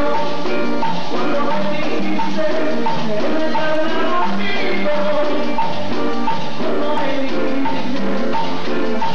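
Latin dance-band music with a steady drum beat and held melody notes, played loud through a hall's PA speakers.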